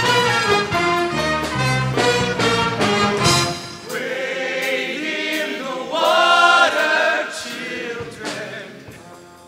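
Show choir singing with a live band. About four seconds in the band's bass and drums drop out, leaving the voices, which grow quieter toward the end.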